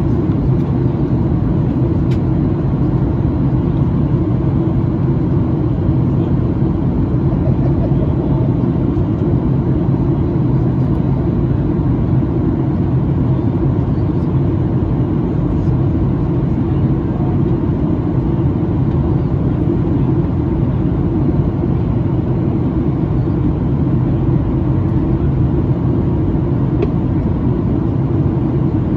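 Steady cabin noise of a Boeing 737-900ER in flight during descent: a constant deep rush of engine and airflow noise heard from inside the passenger cabin.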